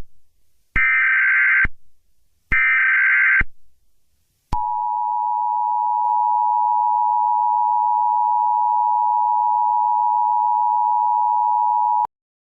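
Emergency Alert System tones marking the start of a new alert: two roughly one-second bursts of the warbling SAME data header, then the EAS attention signal, a steady two-note electronic tone held about seven and a half seconds that cuts off suddenly.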